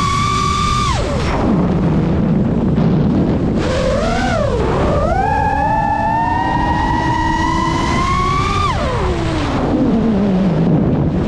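FPV racing quadcopter's brushless motors whining, the pitch following the throttle: a slowly climbing whine that falls away sharply about a second in as the throttle is cut for a dive, wobbles low, then climbs back after about four seconds. The pitch rises steadily again until it drops a second time near nine seconds and rises again at the very end.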